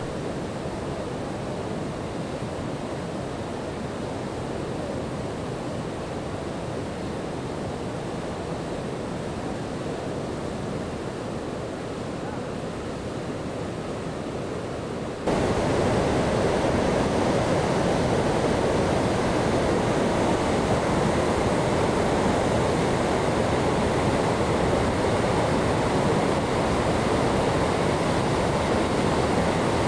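Winooski River in flood after heavy rain: a steady rush of fast, churning floodwater over rapids. It jumps suddenly louder and brighter about halfway through.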